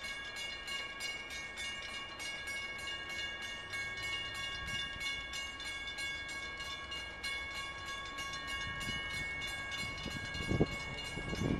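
Railroad grade-crossing warning bell ringing rapidly and steadily, about three to four strokes a second, as a freight train approaches. A couple of low thuds, louder than the bell, come near the end.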